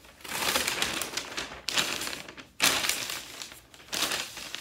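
A large sheet of paper rustling and crackling as it is unfolded and handled, in several bursts with short pauses between them.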